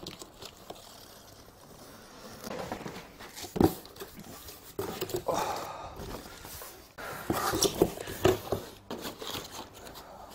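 A large cardboard box being opened by hand: irregular rustling and scraping of cardboard flaps and packing, with one sharp knock a few seconds in.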